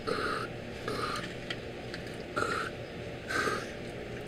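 Aerosol can of penetrating lubricant hissing in about four short spray bursts onto the differential's bolts, to free them so they don't break when undone.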